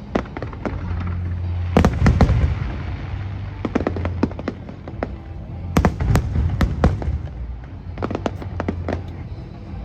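Fireworks display: shells bursting in quick clusters of sharp cracks about every two seconds, over a steady low rumble.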